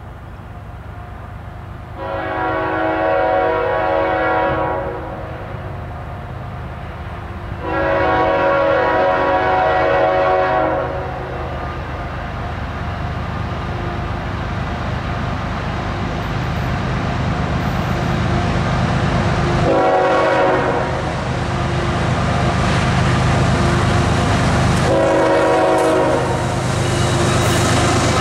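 A locomotive's K5HL five-chime air horn blowing the grade-crossing signal: two long blasts, one short and one long. Beneath it the GE diesel engine rumbles louder as the locomotive approaches, and near the end the wheels are heard passing close by.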